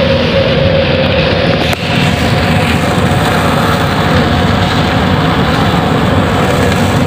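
Heavy storm rain and wind as a loud, steady rush over the low rumble of a ship's running machinery, with a faint steady hum.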